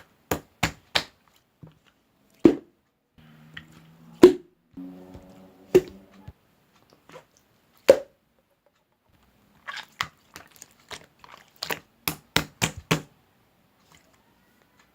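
Close-miked ASMR trigger sounds: irregular sharp clicks and taps, with four louder hollow knocks in the first half and a quick cluster of taps near the end.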